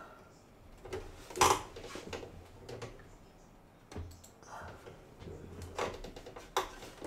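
Hard plastic clicks and knocks as a hand places and adjusts spring clamps on a clear plastic model submarine hull, with one sharp clack about one and a half seconds in and a few lighter knocks near the end.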